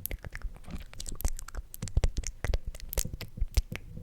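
Sticky mouth sounds close to the microphone: many quick, irregular lip and tongue clicks.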